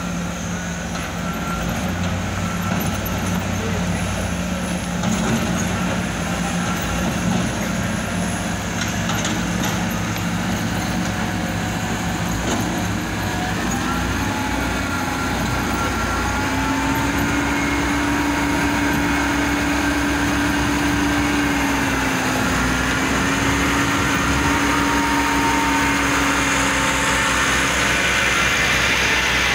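Heavy diesel engines of a dump truck and a Sumitomo SH210 excavator running. About halfway through, a steady engine note climbs a step and holds there, and the sound grows a little louder toward the end.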